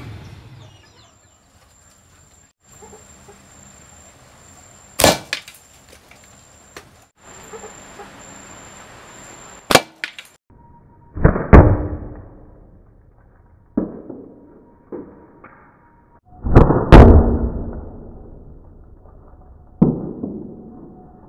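A homemade rubber-band slingshot being shot at a target: a series of sharp snaps and hits spaced a few seconds apart, about eight in all. The loudest come about halfway through and near the end, each with a short ringing tail.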